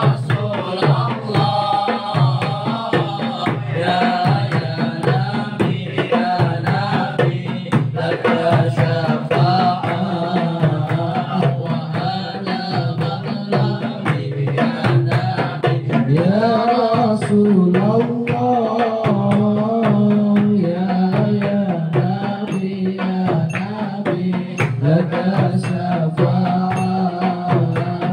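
A group of men chanting a devotional sholawat over rebana frame drums, which beat a busy, unbroken rhythm under the melody.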